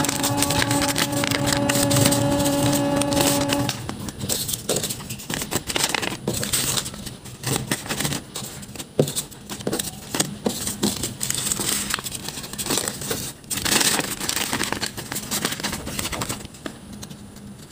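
Background music that stops about four seconds in; after that, paper rustling and crinkling in irregular bursts and clicks as a handmade paper card is handled and its paper pocket opened.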